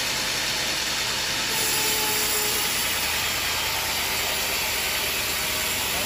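Band sawmill running, its blade cutting lengthwise through a squared teak beam: a steady mechanical noise.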